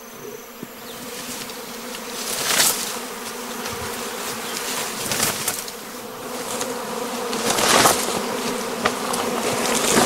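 Night-time insects buzzing in a steady drone. A swell of hissing, rustling noise comes about every two and a half seconds.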